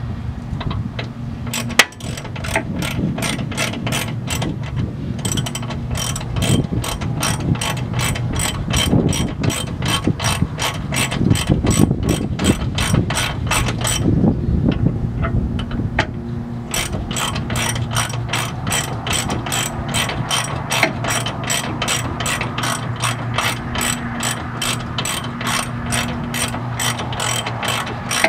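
Ratchet wrench clicking in quick, even strokes, about four clicks a second, as bolts on a steering gearbox are tightened. It pauses briefly a few times, and a steady low hum runs underneath.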